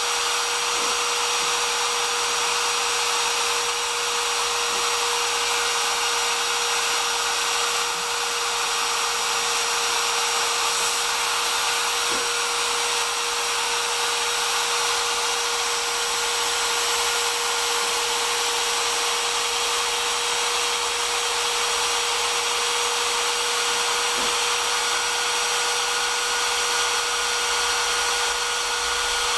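CNC router's spindle motor running steadily, a constant whine over a loud hiss.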